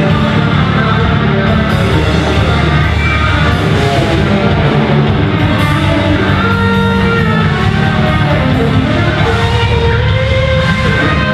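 Rock band playing live and loud, with electric guitars to the fore.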